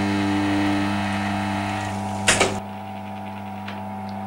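The automaton's mechanism runs with a steady whir over a constant hum, with a single sharp clack a little over two seconds in. After the clack the whir drops away to the hum.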